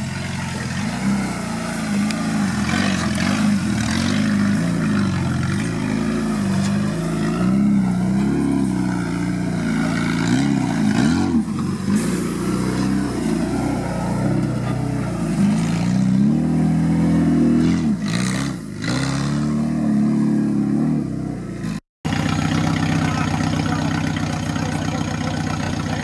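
Suzuki Samurai off-road 4x4's engine revving and labouring as it crawls over rough ground, its pitch rising and falling with the throttle. After a brief cut near the end it runs at a steadier pitch.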